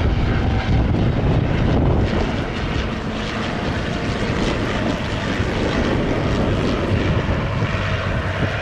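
Fairchild Metroliner's twin Garrett TPE331 turboprop engines and propellers running steadily as the airliner descends on final approach and flares for landing.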